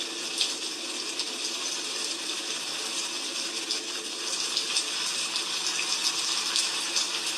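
Rain falling steadily, a continuous hiss dotted with many small sharp drop taps and crackles on hard surfaces.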